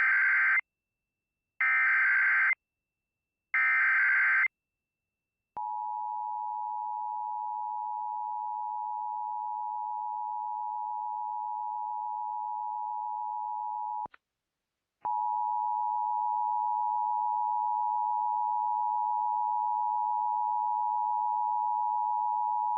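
Emergency Alert System SAME header: three buzzy data bursts about a second long, one every two seconds, followed by the EAS two-tone attention signal, a steady dual-pitched tone that drops out for about a second near the middle and then resumes. It opens a relayed Tornado Warning alert.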